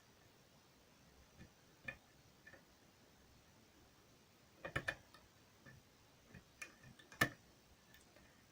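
Small metallic clicks of a lock pick working the pins of a pin-tumbler lock cylinder held under tension during single-pin picking. The clicks are sparse and irregular, with a quick cluster a little past halfway and the sharpest single click near the end.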